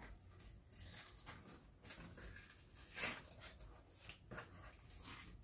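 Soft rustling and crinkling of a cut sticker sheet's paper backing being handled and peeled off a sticky cutting mat, in a few short, faint scrapes.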